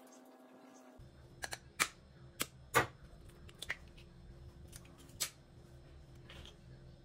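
Eggshell halves clicking and tapping against each other and the glass bowl as an egg's yolk is passed back and forth to separate it from the white: about eight sharp clicks, the loudest near three seconds in, over a low steady hum that starts about a second in.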